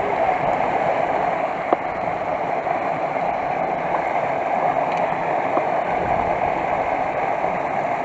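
Creek water running steadily over rocks, a constant rushing, with a single faint click a couple of seconds in.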